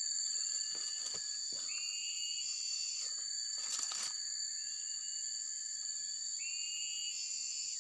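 Steady insect chorus: two high continuous tones hold throughout, with a short higher call about two seconds in and again near the end, and a few light clicks.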